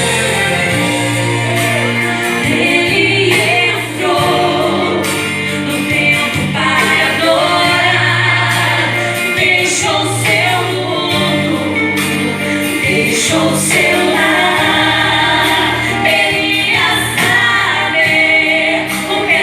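Two women singing a Portuguese-language gospel song over instrumental accompaniment with long held bass notes.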